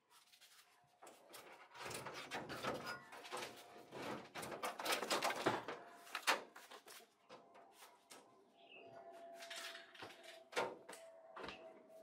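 Plastic tub assembly of a top-loading washing machine being lifted out of its sheet-metal cabinet: a run of scrapes, rubs and knocks, loudest around five to six seconds in, then a few scattered knocks.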